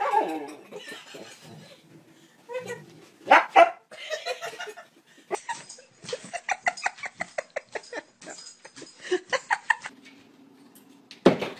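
Huskies vocalizing with yips, whines and barks, including a fast run of short pitched yelps in the middle, and a sharp thump near the end.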